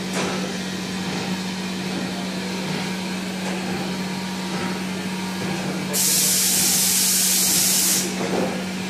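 Electric heat gun running with a steady hum and rush of air, drying flock adhesive on a T-shirt. About six seconds in, a loud high hiss cuts in for about two seconds and stops suddenly.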